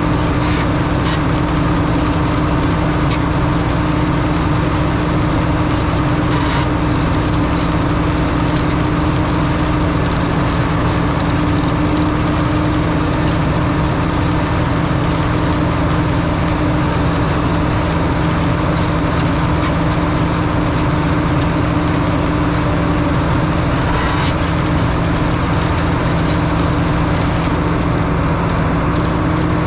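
Farm tractor's diesel engine running at a steady speed, a constant drone with a steady hum that does not change.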